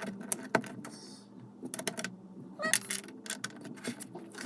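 Plastic Lego pieces clicking and rattling as they are handled and pressed together: scattered sharp clicks at irregular intervals.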